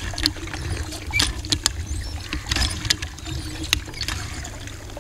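Water from a hand pump pouring and splashing as children wash under it, with irregular sharp splashes and knocks over a low rumble.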